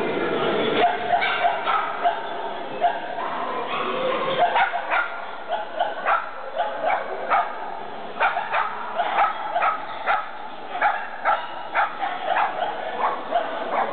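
Shetland sheepdog barking in short, rapid yips, about two or three a second, while running an agility course.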